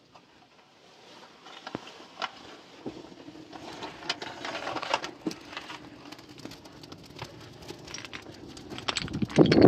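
Cloth rustling with small clicks and taps as a school uniform is buttoned and adjusted. About nine seconds in, heavier footsteps start.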